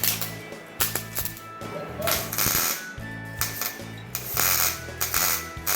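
Welding arc crackling in short bursts of up to about a second, starting and stopping several times, as welds are struck onto a steel nut. Background music with steady low tones runs underneath.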